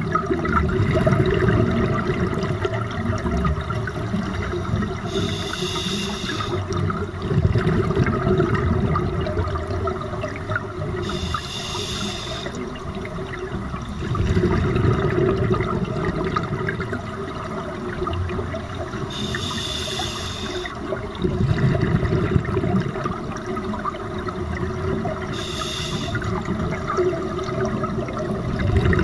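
Scuba breathing recorded underwater: four short, hissing inhalations through a regulator, about six seconds apart, each followed by a louder rush of bubbling exhaled air.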